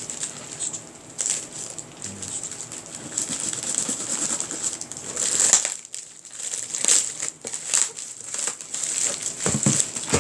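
A cardboard shipping box being opened and handled by hand: irregular rustling and crinkling of cardboard and packaging, with scattered sharp clicks.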